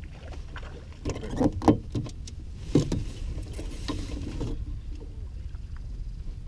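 An irregular run of sharp knocks and clatter on a small fishing boat as a fish is played to the side and the landing net is handled. The loudest knock comes just under two seconds in, and a low wind rumble on the microphone runs underneath.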